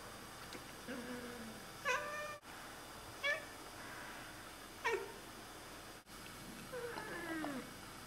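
Oriental cat chirping and chattering at birds: four short, sharp calls that drop in pitch, then a longer, wavering meow near the end.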